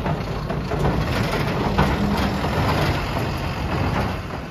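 Ford 3610 tractor's rebuilt diesel engine running at idle, a steady low rumble.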